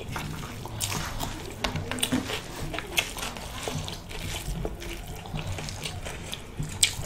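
Close-miked eating sounds: wet chewing and lip smacks, with fingers squelching through rice and curry, heard as many small irregular clicks.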